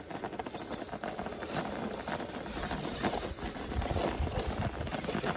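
Dense, irregular crunching and clicking of grit and gravel on a rocky trail. A low rumble joins about halfway through.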